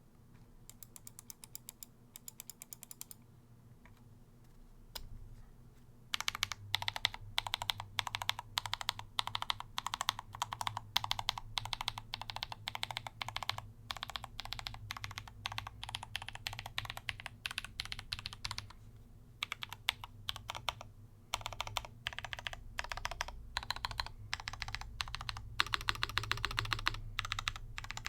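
Typing on a keyboard: a brief flurry of key clicks about a second in, then from about six seconds a long run of fast, irregular key clicks broken by short pauses.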